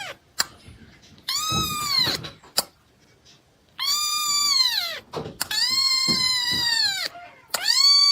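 A cat meowing repeatedly: about four long, drawn-out, high meows, each falling in pitch at its end, with short pauses between.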